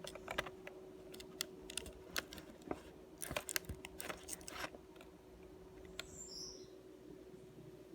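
Scattered light clicks and taps of a laptop LCD panel and its ribbon-cable connector being handled, with a bunch of quick clicks around the middle. A faint steady hum runs underneath.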